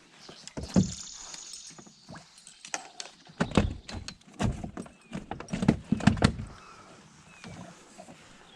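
Irregular knocks and thumps on a small fishing boat, a dozen or so, clustered between about half a second and six and a half seconds in.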